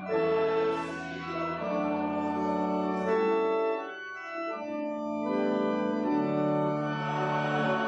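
Church organ playing slow, held chords that change every second or so.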